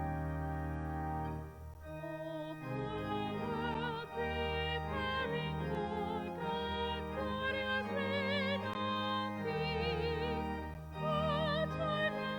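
A hymn sung by a voice with wide operatic vibrato, held notes moving through a slow melody over sustained low accompaniment.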